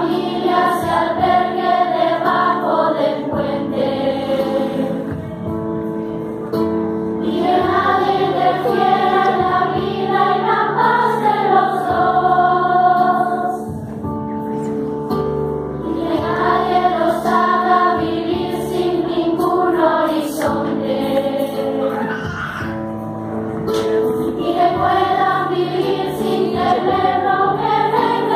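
Children's choir singing in long phrases with short breaks between them, over held keyboard chords that carry on through the breaks.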